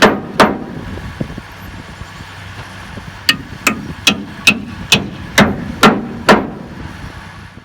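A polycarbonate ratchet-strap tightening handle used as a hammer, striking sharply. Two blows at the start, a pause of nearly three seconds, then eight blows at about two and a half a second.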